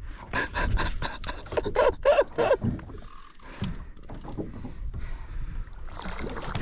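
Two-speed fishing reel being wound in low gear under load: a run of mechanical clicks and rattles in the first couple of seconds, then quieter handling noise.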